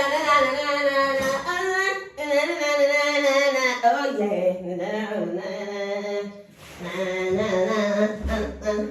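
A person's voice singing long, drawn-out wordless notes with a wavering, warbling pitch, in about four held phrases, for comic effect.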